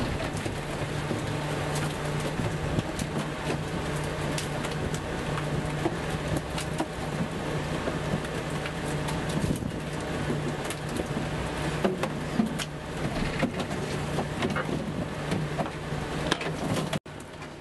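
A fishing boat's motor running steadily, with splashing water and irregular knocks and clatter from the net and gear on the deck. The sound cuts off suddenly near the end.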